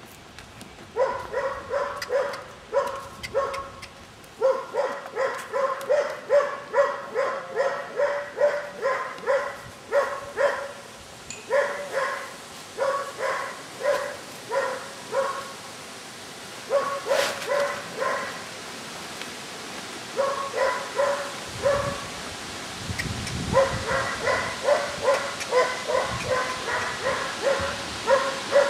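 A dog barking over and over, in runs of about three barks a second broken by short pauses.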